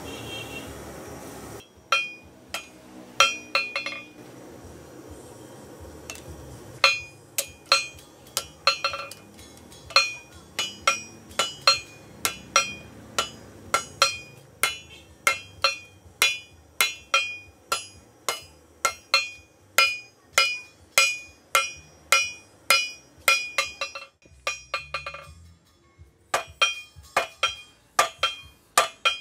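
Hand hammer striking a red-hot machete blade on a steel anvil during forging: sharp ringing metallic clinks at about two blows a second, with a short pause near the end. The blows follow a second or two of steady noise at the start.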